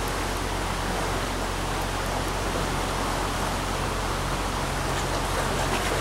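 Trout stream running over rocky riffles: a steady, even wash of water.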